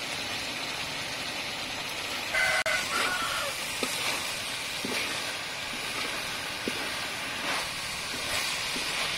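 Beef heart, chilies and basil sizzling in a wok, with a spatula scraping and knocking on the pan now and then. A rooster crows briefly about two and a half seconds in; this is the loudest sound.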